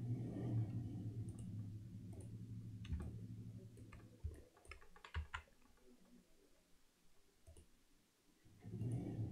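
Computer mouse and keyboard clicks: a handful of single sharp clicks scattered through the middle. A low hum runs for the first few seconds and returns near the end.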